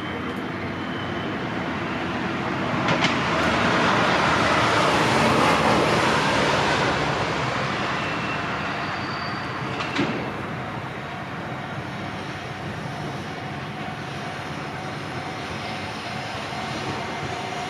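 Electric train running on the Minobu Line: steady wheel-on-rail noise that swells for a few seconds, with a sharp clack about three seconds in and another about ten seconds in.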